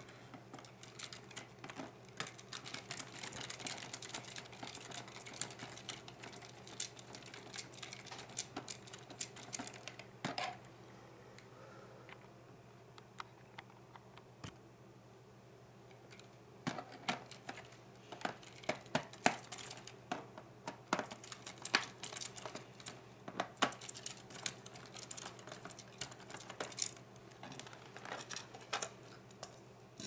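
Small clicks and ticks of a screwdriver working screws out of a laptop's plastic bottom panel and the panel cover being handled and lifted off, in two busy stretches with a quieter pause of a few seconds in the middle.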